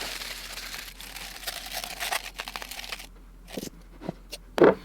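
Aluminium foil crumpling and crinkling as it is pressed into a hollowed resin casting, then scattered small clicks and one short, sharp knock near the end.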